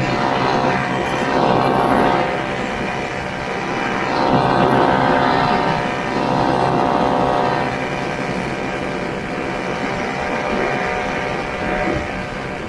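1969 Ski-Doo Olympique's 320cc single-cylinder two-stroke engine running steadily under way, with rushing wind. The sound swells and eases a few times.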